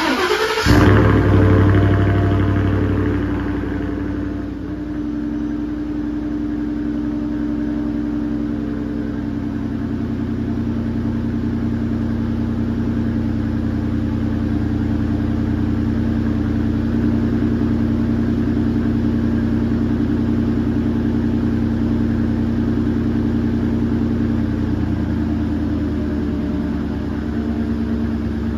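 2016 Ford F-150's 5.0 Coyote V8 starting from semi-cold through a Borla S-Type cat-back exhaust. The starter cranks briefly, the engine catches with a loud flare of revs about a second in, then settles over the next few seconds into a steady idle.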